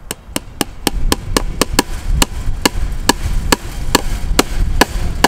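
Rapid, even hammer strikes on barbed wire and a fence staple at a wooden corner post, about four to five a second, each hit ringing briefly. Wind rumbles on the microphone underneath.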